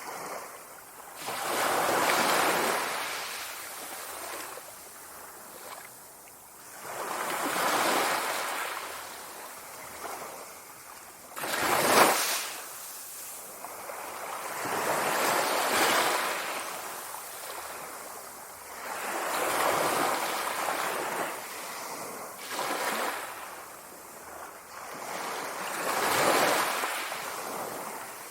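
Sea waves breaking as surf, seven slow swells of rushing water, one every few seconds, each rising and fading away. One wave about halfway through breaks more sharply and loudly than the rest.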